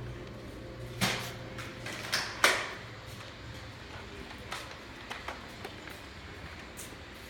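Nerf blasters firing and foam darts hitting: scattered sharp clacks and knocks, the loudest about a second in and about two and a half seconds in, with smaller ones after.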